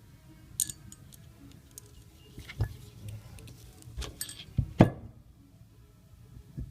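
Scattered metallic clicks, clinks and knocks of tools and parts being handled, about half a dozen, the loudest a sharp knock a little before five seconds in, over a low steady hum.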